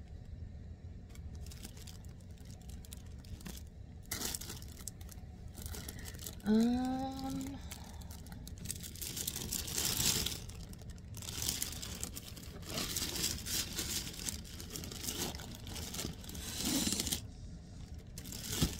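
Rustling and crinkling of packaging and yarn as someone rummages through a haul searching for a skein, with a short vocal sound about six seconds in.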